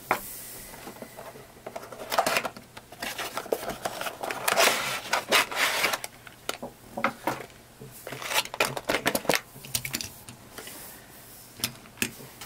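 Cardboard box and plastic tray being handled as a small diecast toy truck is slid out of its packaging: irregular rustling, scraping and clicks. Near the end come sharp clicks as the model is set down on a wooden tabletop.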